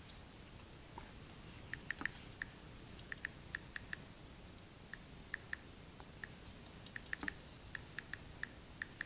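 Faint, quick clicks of small buttons being pressed one after another on a handheld calculator, coming irregularly in twos and threes.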